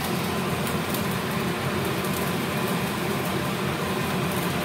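Steady hum and whoosh of a running fan in a kitchen.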